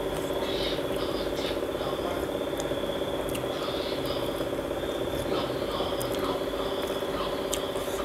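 Close-miked eating sounds: chewing and slurping noodle soup, with a spoon and chopsticks tapping and scraping a glass bowl in scattered small clicks. A steady hum runs underneath.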